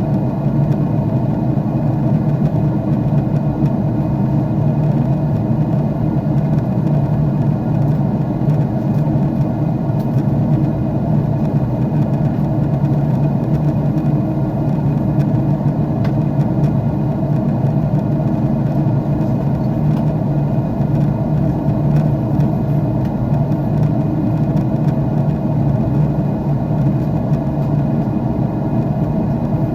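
Jet airliner cabin noise: a steady engine and airflow drone heard from inside the cabin, with a low hum running through it and no change in pitch or level.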